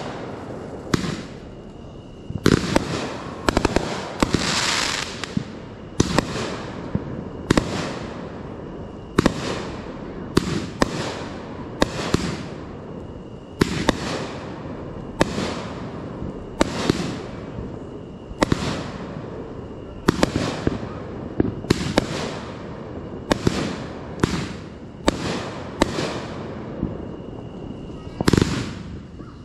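Aerial firework shells bursting one after another, a sharp bang about every second, with a dense stretch of crackle about four seconds in.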